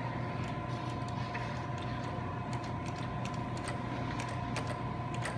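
Arcade claw machine being played: scattered clicks and ticks from its controls and gantry mechanism over a steady low hum and two steady high tones.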